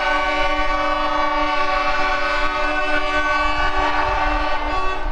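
A loud chord of several steady tones held together without a break, like a multi-note horn, starting suddenly just before and sounding throughout.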